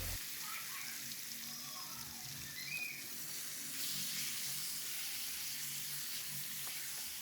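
Raw chicken pieces frying in hot oil with browned onions in a pan, a steady sizzling hiss as they start to cook.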